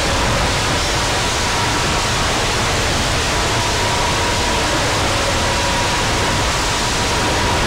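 Steady, loud static-like hiss with a faint steady tone underneath, part of an electronic backing music track; it changes abruptly right at the end.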